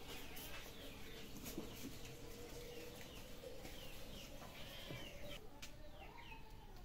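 Chickens clucking and small birds chirping, faint, in many short, falling calls.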